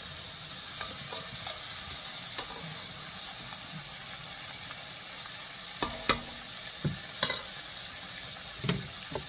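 Flour-coated chicken livers deep-frying in hot oil, a steady sizzle. Several sharp clinks of a metal slotted spoon against the enamelled cast-iron pot come in the second half.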